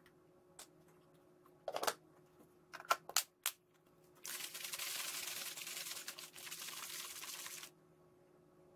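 Protein powder being mixed in a plastic shaker bottle: a few sharp clicks and knocks as the scoop and lid are handled, then a few seconds of an even, hissing rattle as the bottle is shaken hard with water and powder inside. The rattle stops suddenly near the end.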